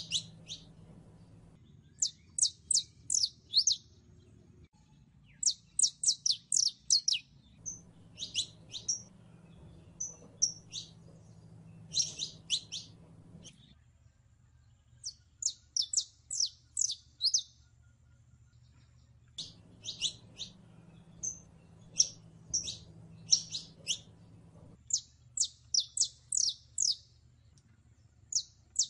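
Saffron finch singing: short phrases of quick, sharp high chirps, a few notes at a time, repeated every second or two with brief pauses.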